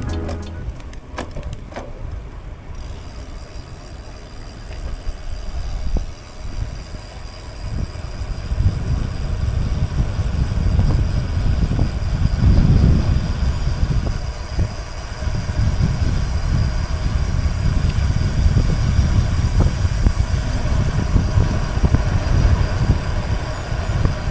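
Wind rushing over the action-camera microphone and road and tyre rumble from a road bike being ridden at speed. The low rumble grows much heavier about eight seconds in and stays strong.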